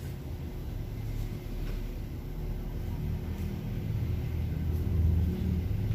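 A steady low rumble, swelling slightly in the second half.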